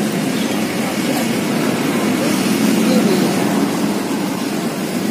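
Street traffic: a steady rumble of passing vehicles, swelling a little around the middle as one goes by.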